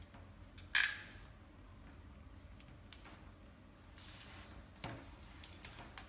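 RJ45 crimping tool's stripping blade cutting the outer jacket of a Cat6 network cable: one sharp snap about a second in, then a few faint clicks from handling the tool and cable.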